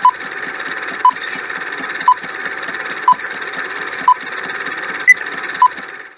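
Countdown timer sound effect: steady rapid ticking over a hiss, with a short beep about once a second. The last beeps come higher and closer together just before it cuts off.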